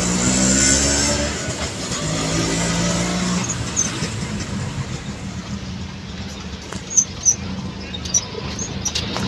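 Auto-rickshaw running along the road, heard from inside the cabin: a steady engine drone with road and wind noise, its pitch shifting over the first few seconds. A few sharp knocks come about seven to eight seconds in.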